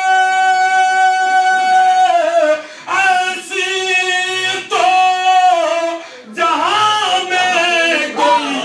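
A man chanting a verse of Urdu devotional poetry into a microphone in a melodic, sung style: one long held note for about two seconds, then a few shorter sung phrases with brief breaths between them.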